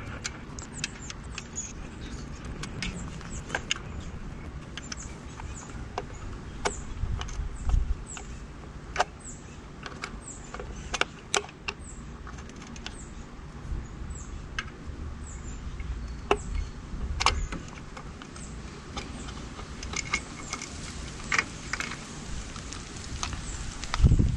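Small irregular metallic clicks and ticks of a T20 Torx screwdriver backing screws out of an e-bike's battery plate, with hand-handling rumble underneath and a louder knock near the end as the plate is worked loose.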